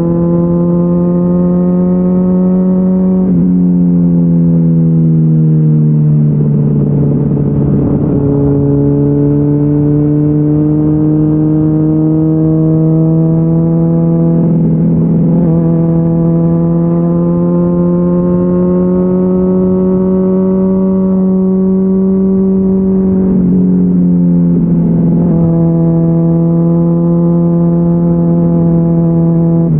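Honda CBR600RR inline-four engine through a GPR Deeptone exhaust with the dB-killer removed, pulling steadily under load. Its pitch climbs slowly, then drops sharply at each of several gear changes.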